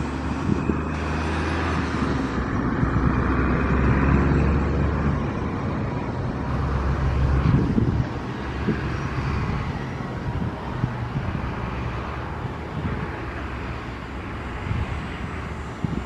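A large engine's steady low drone under a wash of noise, swelling slightly in the first half and easing off toward the end.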